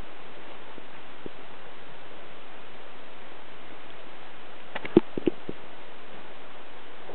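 Steady hiss of recording noise, with a quick cluster of sharp clicks about five seconds in.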